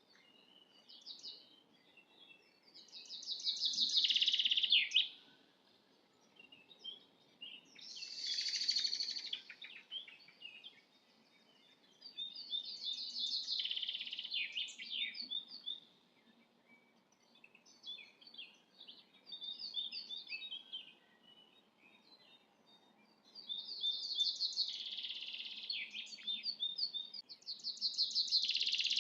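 A songbird singing high, rapidly trilled phrases of two to three seconds each, repeated every few seconds.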